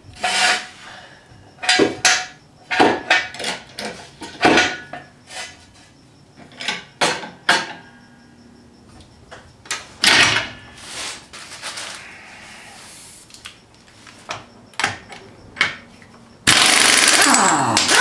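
Scattered metallic knocks and clanks from a steel floor jack and jack stand being set under the car. Near the end a 1/2-inch pneumatic impact wrench runs steadily for about a second and a half on a wheel's lug nut.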